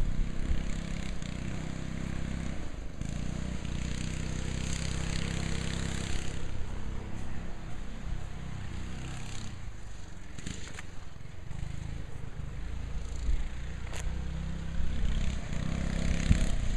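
Murray go-kart's small engine running and revving as the kart is driven, its pitch rising and falling. It is louder near the start and again near the end as it comes closer.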